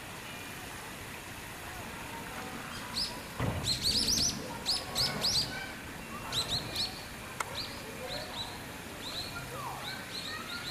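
Birds chirping: a run of short, high chirps begins about three seconds in, several a second at first, then thinning out to scattered single chirps.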